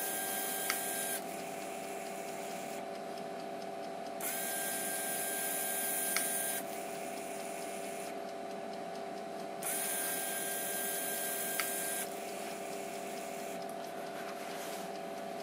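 Emco Compact 5 CNC lathe's electric tool turret motor indexing the turret through several tool positions. It whirs in repeated spells of about two and a half seconds, each with one sharp click, then runs more quietly between them as the turret drives back onto its lock at each tool point. A faint steady hum runs underneath.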